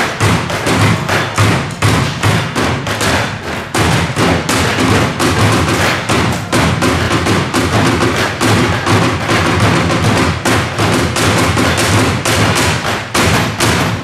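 Percussion played on plastic wheelie bins with the hands, among other junk-instrument percussion: a fast, dense run of deep hollow thumps mixed with sharper taps, keeping up without a break.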